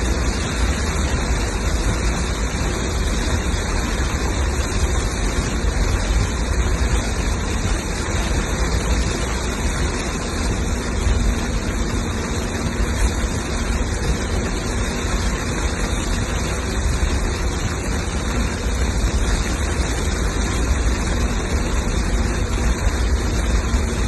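Torrential rain pouring down heavily, a loud, steady, even wash of noise with no breaks.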